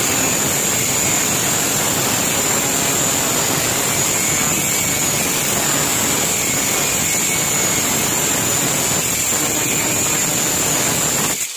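Buildskill 830 W, 100 mm angle grinder with a cutting disc cutting through an iron rod: steady loud grinding over an even high whine, which stops suddenly near the end.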